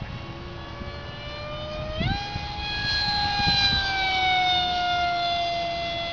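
Radio-controlled model jet flying overhead, its motor a steady whine that jumps sharply in pitch about two seconds in as it is throttled up, then slowly sinks in pitch, over low wind rumble.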